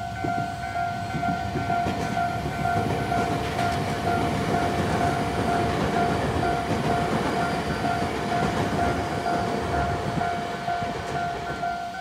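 Tobu Railway level crossing's electronic warning bell ringing in a steady repeating tone, a standard Tobu crossing sound with an odd-sounding timbre. A train passes through the crossing at the same time, its wheels rumbling and clattering on the rails, louder through the middle and easing off near the end.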